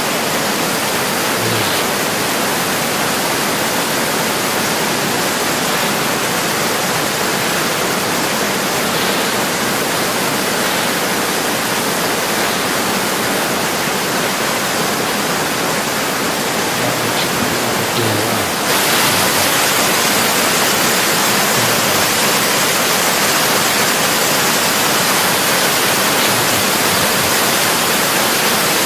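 Steady roar of a storm, wind and rain noise with no distinct events. About 19 seconds in it changes abruptly to a brighter, slightly louder hiss.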